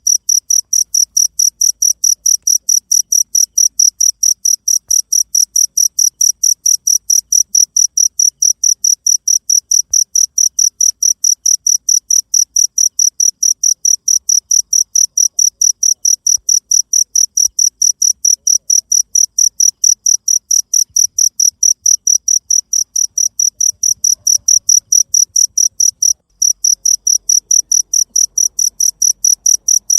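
Cricket chirping steadily, a high-pitched chirp repeated about four times a second, with one brief break near the end.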